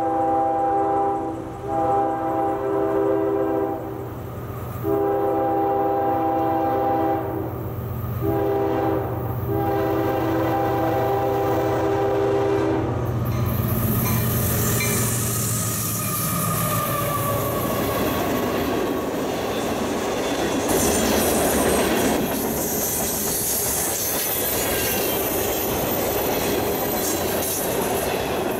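A CSX freight train's locomotive horn sounds a chord in several blasts, the last one held long, over the low rumble of its GE diesel locomotives as they approach. About fourteen seconds in the locomotives pass and the sound turns to the steady rolling noise and wheel clatter of freight cars going by on the rails.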